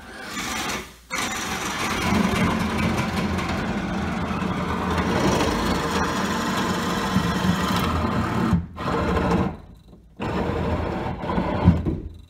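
Power drill boring through the wooden top plate of a wall, running steadily in several long stretches with brief stops, to make a pass-through hole for wiring.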